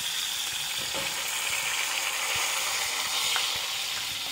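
Breaded whole mackerel deep-frying in hot oil in a skillet: a steady, even sizzle.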